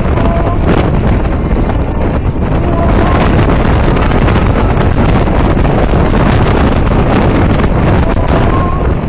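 Wind buffeting the microphone of a camera mounted on the outside of a moving car: a loud, steady rushing rumble, with the car's road noise underneath.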